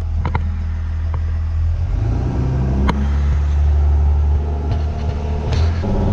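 School bus 24-valve Cummins diesel engine accelerating under throttle, its pitch rising from about two seconds in and dropping near the end as the transmission shifts up. A few short knocks or rattles are heard along the way.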